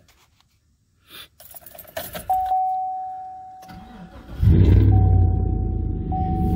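A short clatter and a steady electronic tone, then a 2017 Chevy Silverado's 5.3-litre LS V8 cranks and fires about four and a half seconds in. It settles into a loud, deep idle through dual straight-pipe exhaust with the catalytic converters removed.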